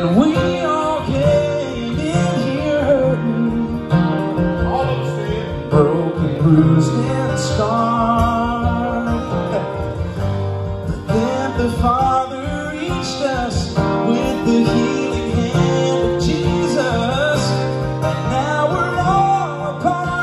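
Live gospel music: an acoustic guitar played under male voices singing long, wavering lines.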